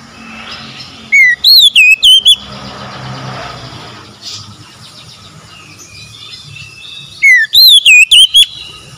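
Oriental magpie-robin (kacer) singing two loud, identical whistled phrases about six seconds apart. Each is a short falling note followed by several swooping whistles, over a faint low hum.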